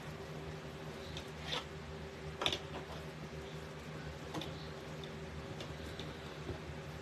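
Soft crinkling and a few short clicks from ribbon and deco mesh pieces being gathered and scrunched by hand, over a steady low hum.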